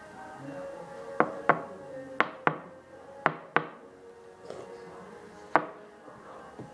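Sharp knocks on a hard object, in three quick pairs and then a single knock, over quiet background music.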